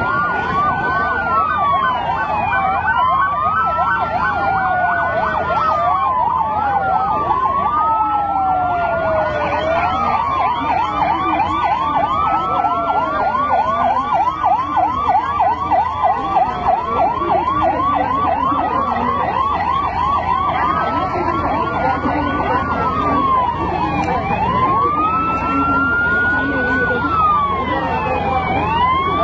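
Several emergency-vehicle sirens from ambulances and airport fire trucks sound together. A slow wail rises and falls every few seconds, and a fast yelping siren runs over it through the middle.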